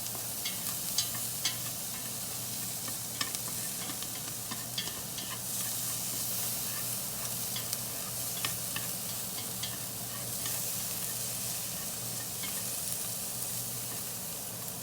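Cilantro and green onion frying in oil in a pan with a steady sizzle, while being stirred, with a utensil clicking and scraping against the pan every so often.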